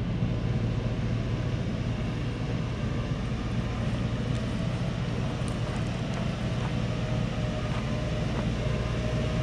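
Diesel engine running steadily at low revs, a constant low drone that neither rises nor falls.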